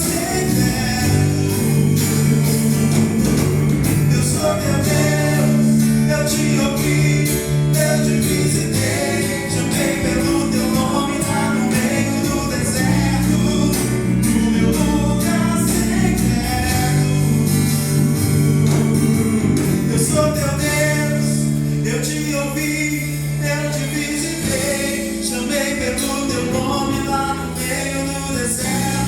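Gospel worship song: singing over a steady instrumental backing with sustained low notes.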